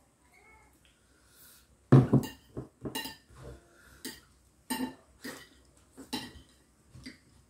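Eating sounds: cutlery knocking on a plate in a run of short, irregular taps, mixed with chewing and mouth noises; the loudest knock comes about two seconds in.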